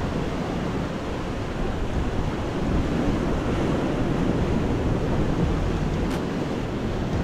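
Sea waves washing against a rocky shore, with wind on the microphone: a steady rushing noise with a low rumble.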